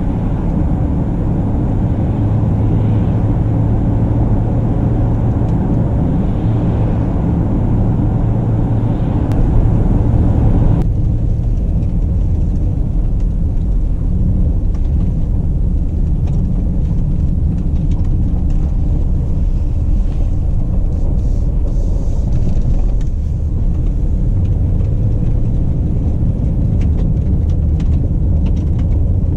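Mercedes-Benz GLE Coupe on the move: a steady low rumble of engine and tyres with a constant low drone. About eleven seconds in, the higher hiss of road noise drops off suddenly while the rumble carries on.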